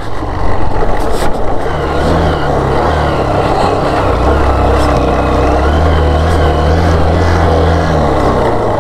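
Motorcycle engine running at low revs on a rough dirt track, its note rising and falling a little with the throttle, over the crunch and rattle of tyres on loose stones. There are a few sharp knocks in the first second or so.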